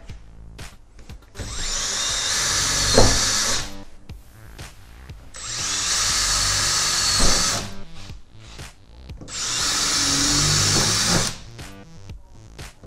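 Cordless drill with a 3.5 mm bit drilling pilot holes into a van door's sheet-steel panel, in three separate runs of about two seconds each with short pauses between.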